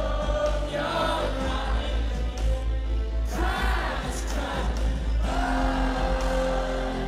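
Live rock band playing in an arena, with a male lead singer singing into the microphone over a steady, heavy low bass.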